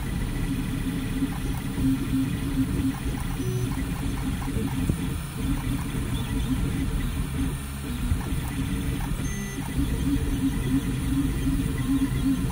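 FDM 3D printer at work: its stepper motors buzz in short tones that keep changing pitch as the print head moves, over the steady whir of the cooling fans.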